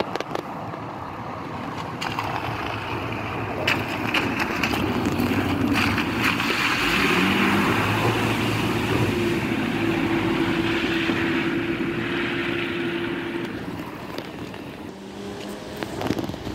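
A car driving through a flooded ford. Its engine runs under the hiss of water thrown up by the wheels, which swells to a peak midway and fades away over the last few seconds.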